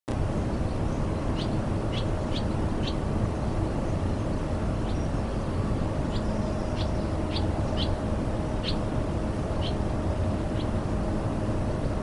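Swallows giving a dozen or so short, high chirps, scattered through, over a steady low background rumble with a faint steady hum.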